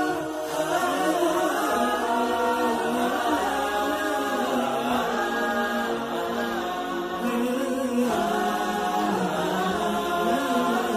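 An Islamic nasheed sung without instruments, the voices holding and bending long notes.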